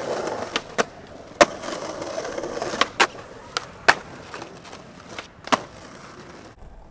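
Skateboard wheels rolling over concrete paving with a steady hiss, cut by a series of sharp clacks as the board's tail pops and the deck and trucks slap back down on landing.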